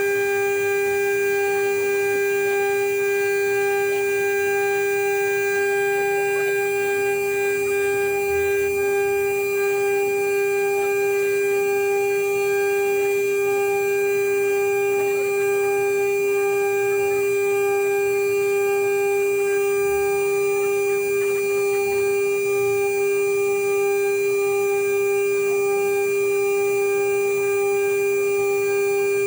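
CNC router spindle running at a steady high-pitched whine that holds one constant pitch throughout, with faint scattered ticks underneath.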